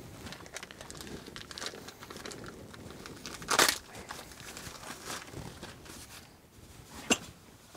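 Packaging crinkling and tearing as a 25-piece punch and chisel set is unwrapped by hand, with one louder crackle about three and a half seconds in and a sharp tap near the end.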